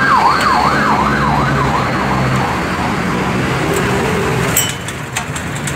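An emergency-vehicle siren warbles up and down a couple of times a second, then fades away over the first two or three seconds. Under it is a steady low engine hum. A few sharp clicks come near the end.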